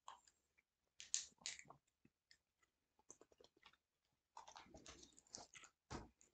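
Faint handling of a plastic water bottle with small clicks and crinkles, then sipping and taking a mouthful of water, and a soft thump near the end.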